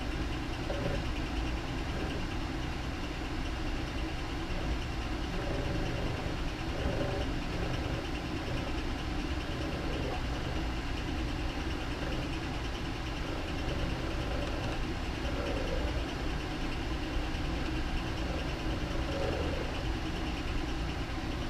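A steady, even mechanical hum with no distinct strokes or changes.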